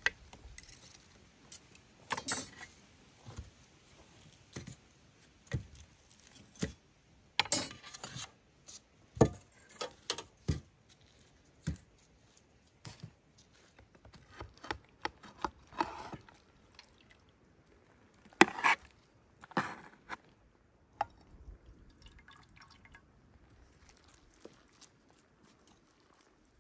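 A knife and metal skewers clinking and scraping against a metal serving tray as grilled vegetables are slid off onto it: irregular sharp clicks and taps with soft plops of the food landing.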